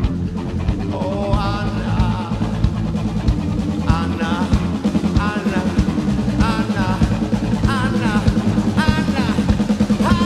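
A rock band playing: a drum kit keeps a steady, busy beat under a bass line and electric guitar, with a short wavering melodic phrase coming back about every second and a quarter.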